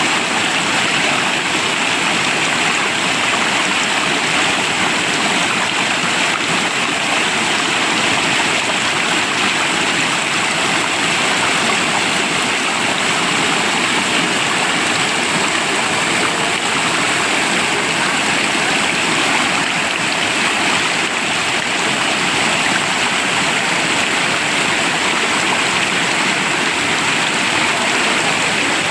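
Steady rush of flowing river water, unbroken throughout.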